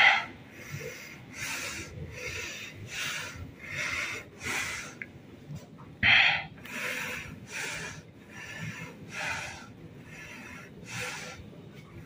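A person breathing heavily close to the microphone: a quick run of noisy puffs, a little under two a second, with two louder bursts near the start and about six seconds in.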